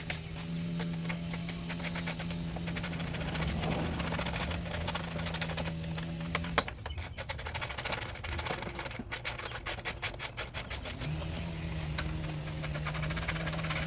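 A steady mechanical hum with fine rapid ticking. The hum cuts out just after a sharp click about six and a half seconds in and starts again about eleven seconds in.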